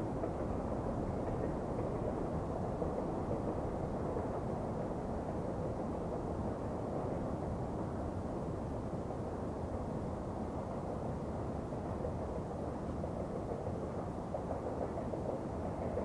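Distant, steady rumble of two DF4B diesel-electric locomotives working under load as they haul a freight train uphill, with no distinct engine beat or horn.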